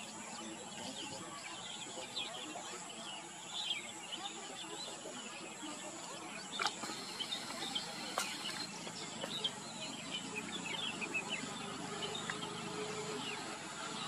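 Outdoor ambience of many small birds chirping in the background over a steady high hiss, with two sharp clicks a little past the middle.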